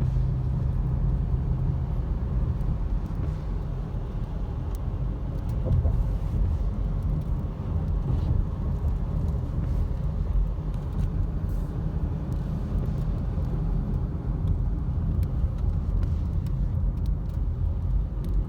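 Steady low rumble of a car heard from inside the cabin, with faint scattered ticks.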